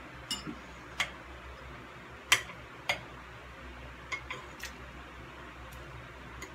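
Metal forks clinking against dishes while noodles are picked up and eaten: about eight sharp, irregular clinks, the loudest a little past two seconds in.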